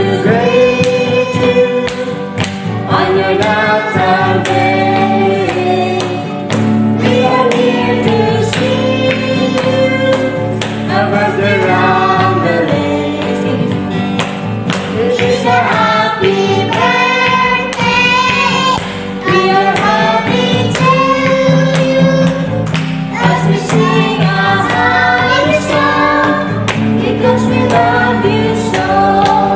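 A family singing a song together, women's and girls' voices, to a strummed acoustic guitar, with hand claps keeping the beat.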